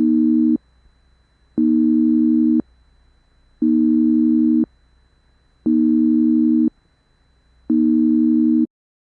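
A low electronic buzzer tone sounding five times, each about a second long with about a second between, like a telephone busy signal.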